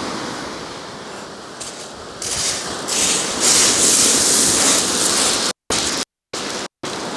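Surf breaking on a shingle beach, a steady rushing hiss that swells about two seconds in and is loudest around the middle. Near the end the sound cuts out completely several times for split seconds.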